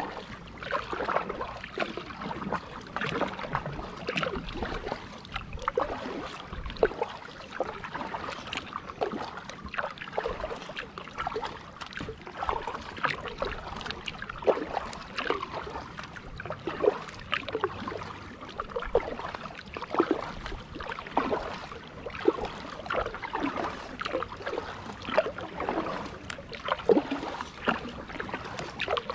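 Kayak paddle dipping into calm water stroke after stroke, with splashes and water dripping off the blades.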